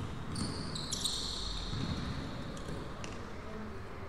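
Game sound from indoor pickup basketball: a basketball bouncing on the court, and high squeaks of sneakers on the hall floor for a couple of seconds.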